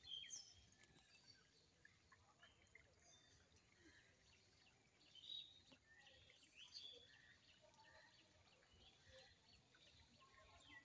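Faint chirping of small birds in the surrounding trees: many short, scattered calls over a quiet outdoor background.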